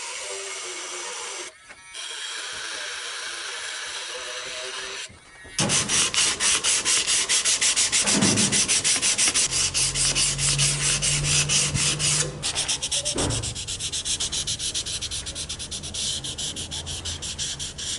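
Small rotary tool with a conical abrasive stone running and grinding rust from a steel knife blade, a steady hiss over a faint motor whine, for about five seconds. Then rapid hand sanding strokes back and forth along the blade with an abrasive pad, about five strokes a second.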